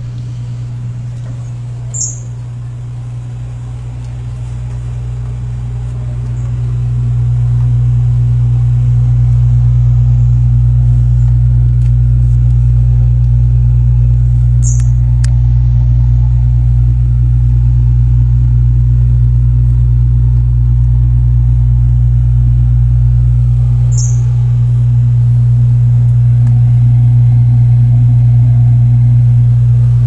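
A loud, steady low hum that gets louder about seven seconds in, with three brief high chirps spread through it.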